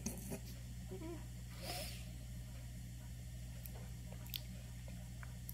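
A baby making a few short, breathy vocal sounds, then quietly gnawing on a baby rice cracker with small mouth clicks, over a steady low hum.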